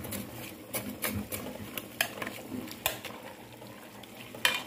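Metal spoon stirring chopped vegetables in an aluminium pressure cooker, with several irregular clinks and scrapes of the spoon against the pot, the sharpest near the end.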